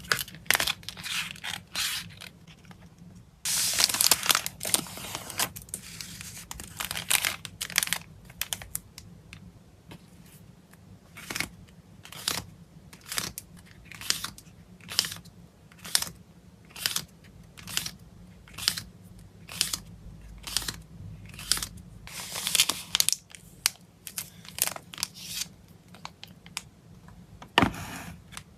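Hands packing photocards in plastic and paper wrapping: a run of short crinkles, rustles and scrapes at a fairly even pace, with a longer tearing sound about three and a half seconds in.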